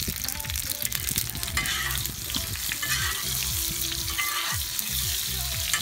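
Pelmeni frying and sizzling in a large steel pan over a wood fire. A metal ladle stirs them, scraping against the pan now and then.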